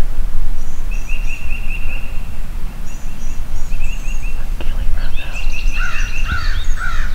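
Small woodland birds trilling and chipping over a steady low rumble of wind on the microphone, with a run of four or five harsh, falling bird calls near the end.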